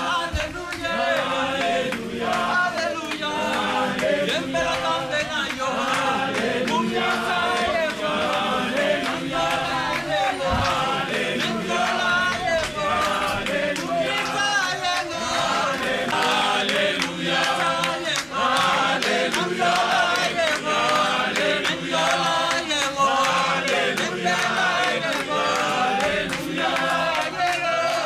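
A crowd of mourners singing together in chorus, men's voices prominent, without a break.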